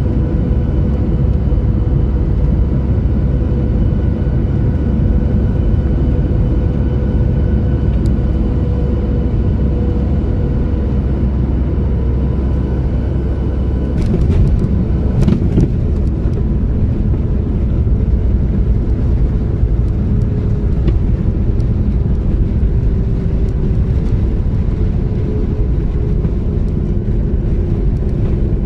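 Jet airliner cabin noise on landing: a steady engine hum with a high whine, then a few knocks about halfway through as the wheels touch down. It is followed by the rumble of rolling on the runway, with the engine tone slowly dropping in pitch.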